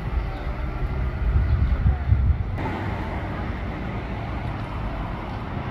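City street traffic noise with low rumble and wind on the microphone in the first part. About two and a half seconds in, the sound changes abruptly to a steadier traffic hum.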